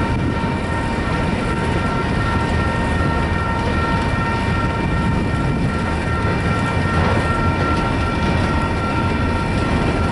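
Freight train of double-stack container cars rolling past at close range: a steady rumble of wheels on rail, with steady high ringing tones held over it.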